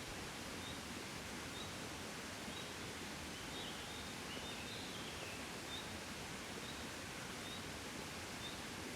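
Soft, steady wind noise of a gentle breeze. A faint high chirp repeats about once a second, with a short falling twitter near the middle.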